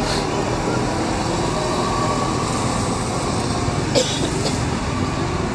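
A line of cars driving slowly past one after another, engines running and tyres on the road. There is a sharp click about four seconds in.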